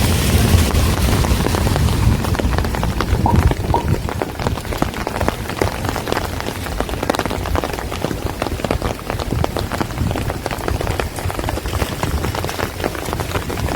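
Steady rain, with many dense drops ticking and pattering on hard surfaces. A low rumble underlies the first few seconds and then eases.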